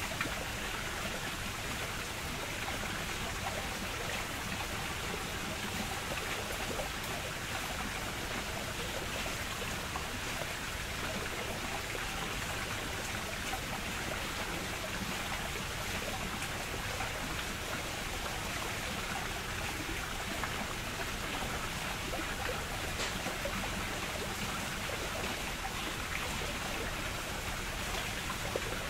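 Running water, a steady even rush with fine trickling and no breaks.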